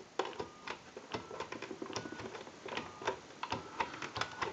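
Push-button keys on a touch-tone telephone keypad being pressed one after another to dial out: a run of irregular plastic clicks. Several presses carry a short steady beep.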